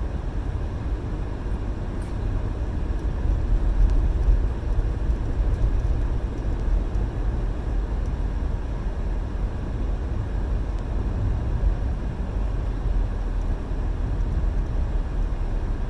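Car driving on snowy roads, heard from inside the cabin: a steady low rumble of engine and tyres.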